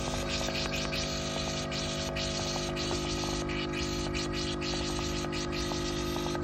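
RPX Technologies DryBot aircraft-engine dehumidifier running in its regeneration cycle: a steady hum of several even tones over a hiss.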